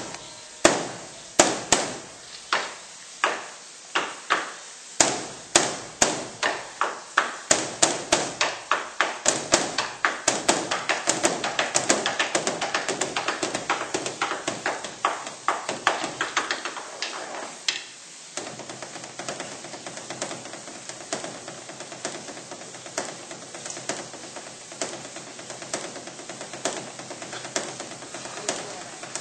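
Korean Buddhist temple drum (beopgo) beaten with sticks by monks. Single strikes a little over half a second apart quicken into a dense fast roll; at about eighteen seconds it drops to a softer, steady rapid beat.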